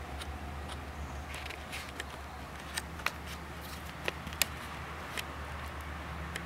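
Steady low outdoor background hum, with a scattered handful of short sharp ticks, the loudest a little after four seconds in.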